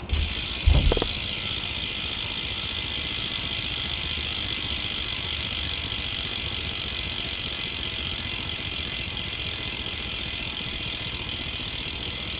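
BMX rear hub (Demolition Rolls) freewheeling as the rear wheel spins, its ratchet giving a steady high-pitched buzz of fast clicks. There is a brief thump about a second in.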